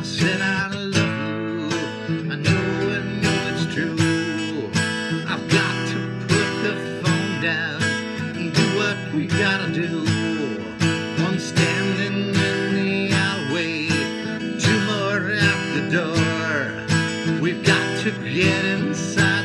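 Acoustic guitar strummed in a steady rhythm, with a man's voice singing over it.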